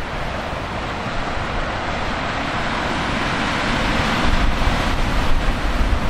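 Heavy typhoon surf: breaking waves and wash make a continuous rushing noise that swells louder about halfway through, with wind gusts buffeting the microphone in the last couple of seconds.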